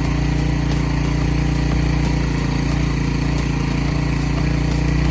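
Small gasoline engine running steadily at a constant speed, with no revving or change in load.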